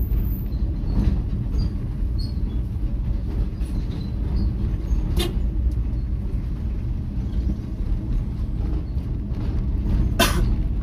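Steady low rumble of a moving vehicle's engine and road noise. Two short sharp knocks cut through it, one about five seconds in and a louder one near the end.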